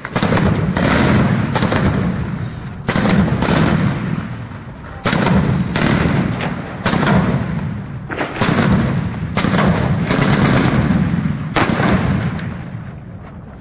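Gunfire: about a dozen loud single shots at irregular spacing, roughly one a second, each trailing off in a long echo, over a steady low rumble.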